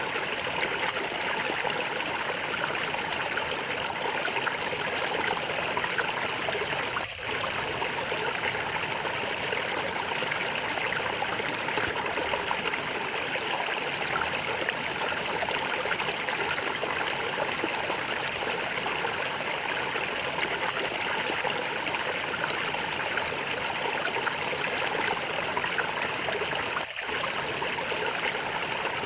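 Flowing water gurgling and trickling steadily, like a small stream, with two momentary dropouts about a quarter of the way in and near the end.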